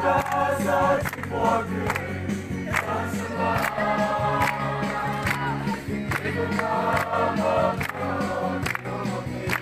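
A group singing a Christian song together, with instrumental accompaniment and a steady beat of sharp strikes.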